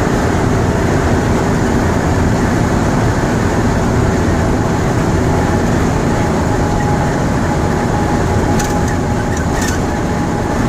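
Ikarus 256.50 coach's Rába D10 six-cylinder diesel engine running steadily at cruising speed, heard from inside the cabin together with road and tyre noise. Two brief light rattles come about a second apart near the end.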